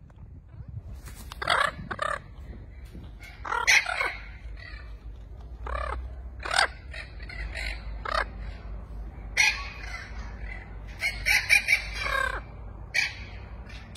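Spix's macaws calling: short harsh squawks about once a second, with a quick run of several together near the end.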